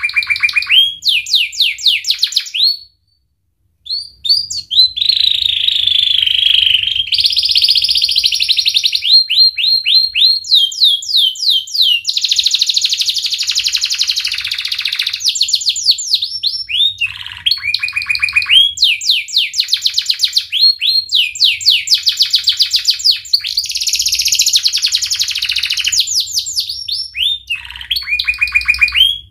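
Domestic canary singing a long, loud song of fast repeated rising notes and rolling trills, with one short break about three seconds in.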